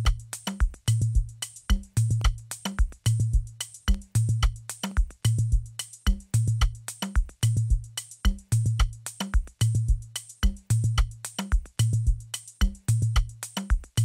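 Programmed drum loop playing back from a music production program: a low, sustained kick or bass note recurs evenly, with sharp hi-hat and percussion hits between, in a steady repeating beat.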